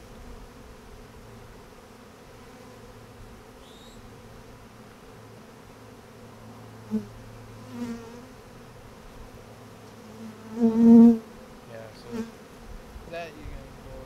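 Swarm of honeybees buzzing steadily in the air around their opened colony. A few single bees buzz louder for a moment as they fly close by, the loudest about three-quarters of the way through.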